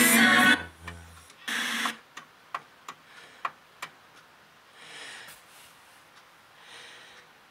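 Music playing from a Sony MHC-EC69i mini hi-fi cuts off about half a second in, followed by a brief burst of sound and then about five sharp plastic clicks as the stereo's front-panel buttons are pressed. Two faint soft noises follow near the end.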